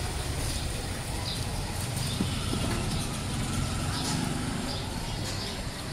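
Street ambience: a steady rumble of road traffic and general street noise, with faint short sounds higher up.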